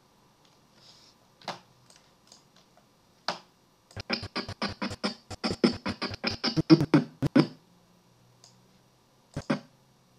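Dialogue audio of the reference clip scrubbed in Maya's timeline: a few single short blips, then from about four seconds in a stuttering run of chopped fragments of a man's voice, about seven a second, for three and a half seconds, with one more blip near the end.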